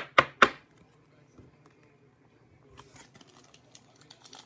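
Trading card pack wrapper being opened: three short, sharp tearing or snipping sounds in quick succession, then faint crinkling of the wrapper from about three seconds in.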